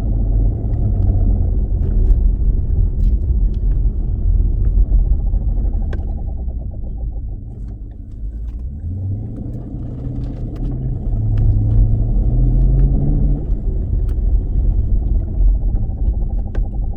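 Low rumble and drone from a 2016 Dodge Challenger Scat Pack's drive line, heard as a weird noise at the center console, the sign of a bad driveshaft carrier bearing. Its pitch rises through the middle, with scattered light ticks over it.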